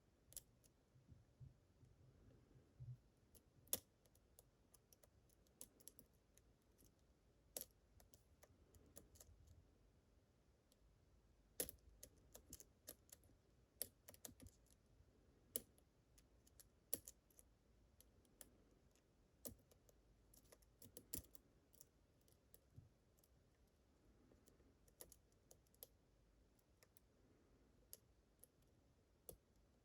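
Faint, irregular clicking and scraping of a lock pick and tension wrench working the pins of a Goldilox CL challenge lock, a Medeco-style lock with rotating pins, with a few sharper clicks every few seconds.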